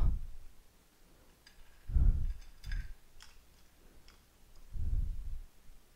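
Kitchen handling sounds as ladyfingers are dipped in coffee and laid into small glass jars: two low dull thumps, about two seconds in and again near five seconds, with a few faint light clicks between them.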